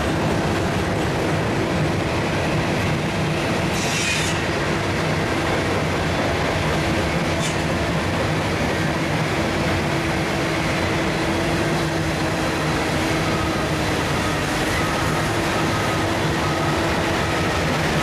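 Freight train cars rolling past with a steady rumble and wheel clatter, and a brief wheel screech about four seconds in. Near the end a short beep repeats, the reversing alarm of the hi-rail tree-trimming machine as it starts to move.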